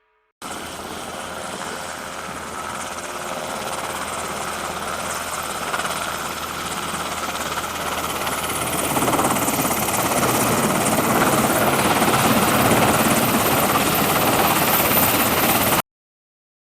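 Helicopter running, growing steadily louder over about fifteen seconds, then cutting off suddenly.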